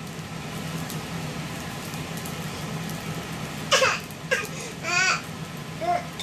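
A baby laughing and squealing in about four short, high-pitched bursts, starting a little under four seconds in.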